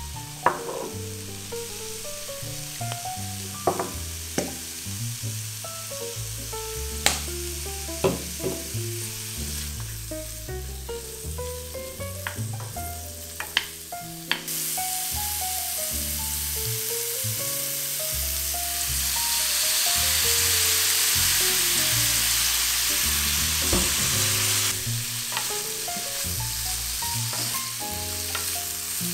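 Curried cauliflower frying in a nonstick pan, stirred with a wooden spatula that knocks against the pan now and then. About halfway through, soy sauce goes into the hot pan and the sizzle turns suddenly much louder, then eases somewhat near the end. Background music plays throughout.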